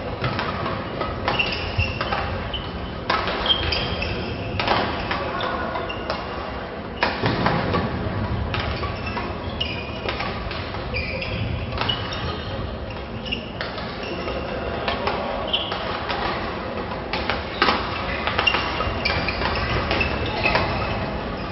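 Badminton rackets striking a shuttlecock again and again in a quick, irregular rally, with players' footfalls on the court floor, echoing in a large sports hall.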